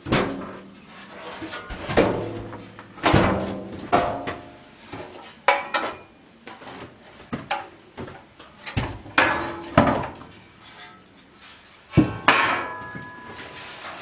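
Steel vehicle body panels being dug out of a pile and handled, clanking and scraping against each other. There are about a dozen irregular knocks, several of them ringing briefly like struck sheet metal.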